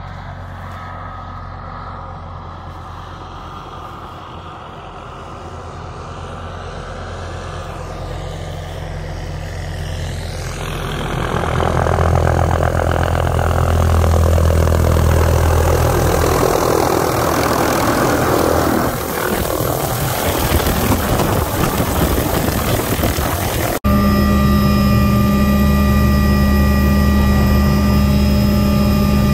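A helicopter approaching and coming in close: its rotor and engine noise builds from faint to loud over about ten seconds, stays loud with rotor wash blowing past, then eases. Near the end it cuts to inside the helicopter's cabin, where the engine and rotor run steadily with a high whine.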